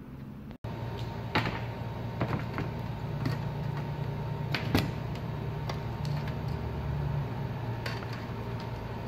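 Light clicks and knocks of laptop parts and an LCD panel being handled on a rubber repair mat, over a steady low hum. The two sharpest knocks come about a second and a half in and near the middle.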